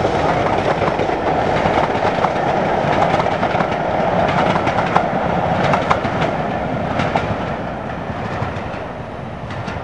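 Class 37 diesel locomotive hauling passenger coaches past, its engine running under power, with the coach wheels clicking over rail joints. The train fades away over the last few seconds.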